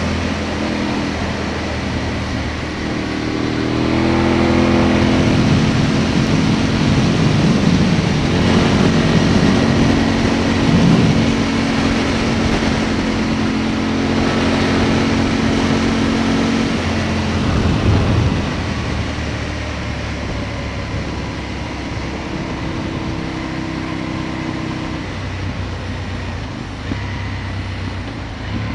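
Aprilia Tuono motorcycle engine running under way at road speed, with wind rushing over the camera. The engine note climbs a few seconds in and falls back to a lower, quieter note about two-thirds of the way through.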